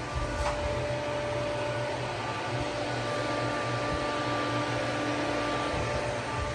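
Hydraulic power unit of a CNC press brake running: a steady low machine hum, with a few faint whining tones held for several seconds each.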